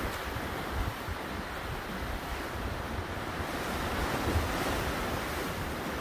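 Sea waves surging and breaking against a pier, with gusty wind buffeting the microphone in uneven low rumbles.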